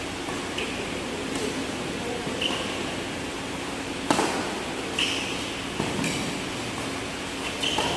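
Badminton rally: sharp racket strikes on a shuttlecock, a second or more apart, the loudest about four seconds in, echoing in a large hall. A few short high squeaks fall between the strikes, over steady background noise.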